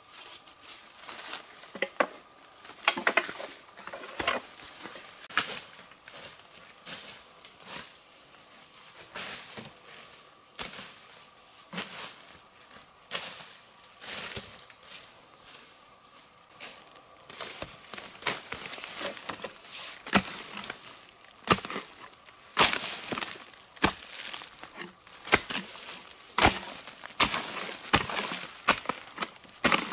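Irregular chopping and knocking strikes, a blade or tool hitting wood, sometimes singly and sometimes in quick clusters, more frequent in the second half. A faint steady high tone sounds in the background through the first half.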